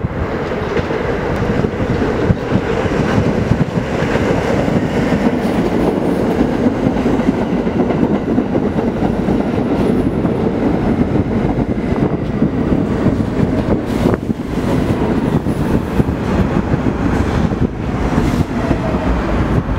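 An R46 subway train pulling into the station: a steady noise of its wheels running on the rails, louder as the cars come alongside. A few sharp clicks stand out in the second half as wheels pass over rail joints.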